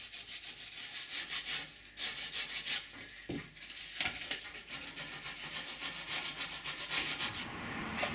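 Hand sanding the cured epoxy and glass-fibre repair on the end of a wooden bowsprit with 80-grit sandpaper: quick back-and-forth rasping strokes, with two short pauses. The strokes stop shortly before the end.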